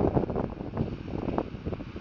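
Wind buffeting the microphone in irregular gusts, strongest at the start.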